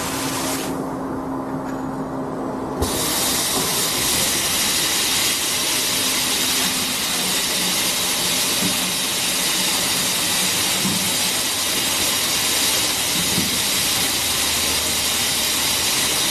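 Automatic piston oil-filling machine running with a steady hiss. The higher part of the hiss cuts out for about two seconds near the start, then comes back.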